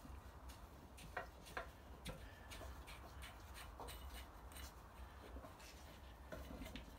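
Faint metallic clicks and light scrapes of hand grips working at a brass tap's fixing nut under a ceramic basin, where limescale corrosion holds the fitting fast. The clicks come irregularly, a few a second, over a low steady hum.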